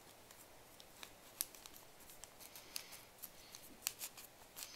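Folded paper of a modular transforming origami ring being twisted in the hands: faint, scattered papery clicks and crinkles as the folded units slide against each other.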